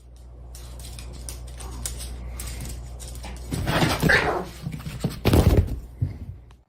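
A dog making vocal sounds, with a louder call about three and a half seconds in and a short, loud one about five and a half seconds in, over a steady low hum.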